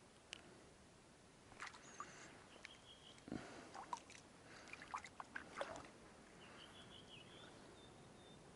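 Near silence with a few soft clicks and knocks in the middle and one low thump, and faint bird chirping near the end.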